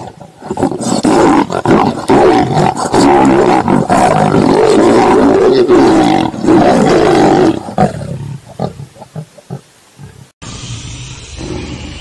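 Lions snarling and growling loudly in a scuffle over food, harsh and continuous for about eight seconds, then dying down to a few short growls before cutting off.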